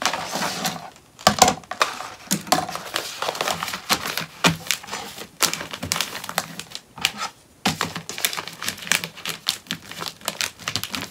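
Sheet of paper-backed adhesive tearaway embroidery stabilizer crinkling and crackling as it is handled and pressed into a plastic embroidery hoop, in irregular short bursts.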